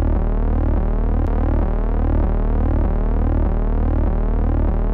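Synthesized electronic drone: a steady low hum under layered tones that keep sliding up and down in pitch.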